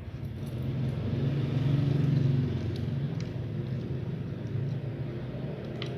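A low motor-vehicle engine rumble that swells about two seconds in and then eases off.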